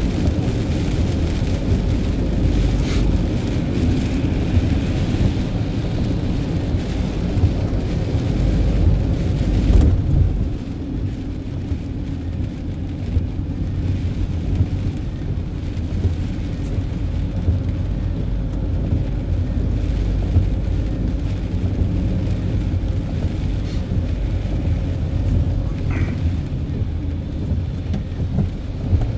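Steady road and tyre noise of a vehicle driving on a wet motorway in the rain, a low rumble with a hiss over it. The hiss thins out about ten seconds in.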